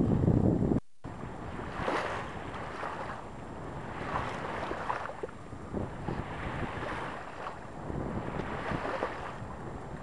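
Wind buffeting the microphone aboard a sailboat under sail, cut short by a brief dropout about a second in. After it, a quieter rush of wind and water that swells and eases every second or two.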